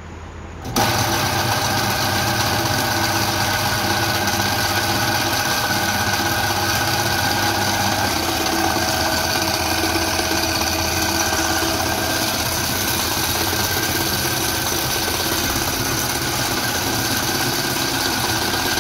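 Electric motor switching on about a second in and running a restored piston water pump (donkey pump) through a motorcycle chain-and-sprocket drive, a steady, even mechanical hum as the pump delivers water.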